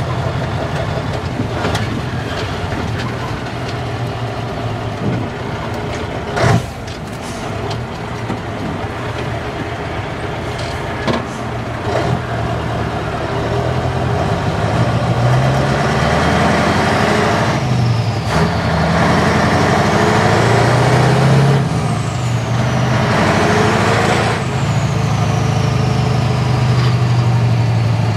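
Classic Scania V8 truck's diesel engine, heard from inside the cab, pulling away and accelerating through the gears, its note climbing and dropping several times in the second half. Above the engine a high whistle glides up and down, and about six and a half seconds in there is one brief sharp noise.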